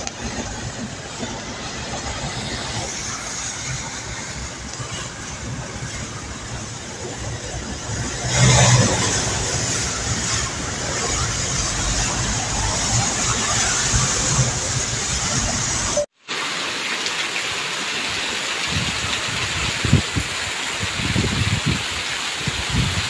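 Heavy rain pouring down and floodwater rushing across a road, a steady noisy hiss that swells louder about a third of the way in. The sound cuts out for a moment about two-thirds through, then the rain carries on.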